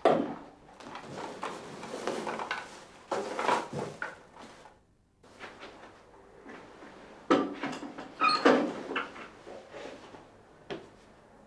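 Rustling, knocking and clatter of things being handled and moved about on a desk, with a short lull about five seconds in, louder clunks around seven and eight seconds in, and a quick knock near the end.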